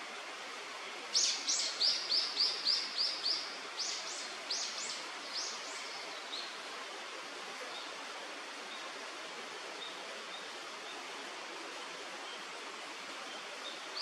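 A bird calling: a run of about a dozen sharp, high notes, quick at first, then slowing and fading out. A stream rushes steadily underneath.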